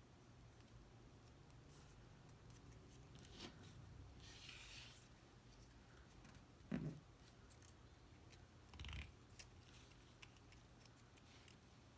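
Faint handling of cardstock paper pieces: light rustles and scrapes, with a soft tap about seven seconds in.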